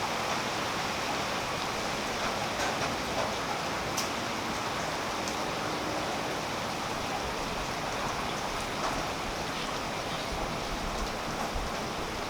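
Steady rain falling on tree foliage, a constant patter with scattered individual drops ticking sharply now and then.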